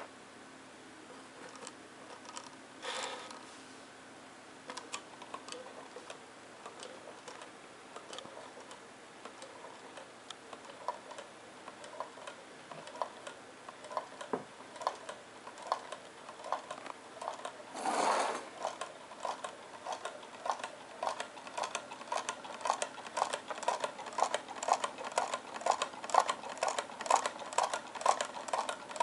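Homemade Pringles-can low-temperature-difference Stirling engine, heated by a tea light, running with a rhythmic clicking from its wire crank and linkage; the clicks start sparse and grow steadily faster and louder as the engine picks up speed, reaching about three a second. Two brief rustling noises cut across it, the louder about two-thirds of the way through.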